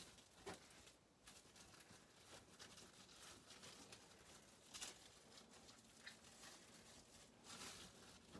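Faint rustling and crinkling of plastic cling film, with soft clicks, as hands handle raw chicken breast on a film-covered cutting board; a handful of brief rustles, the clearest near the middle and toward the end.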